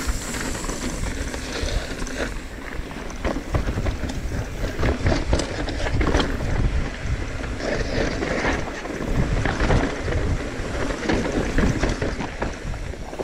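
Mountain bike descending a dry dirt trail at speed: wind buffets the microphone while the tyres crunch over dirt and rocks and the bike rattles and knocks over bumps.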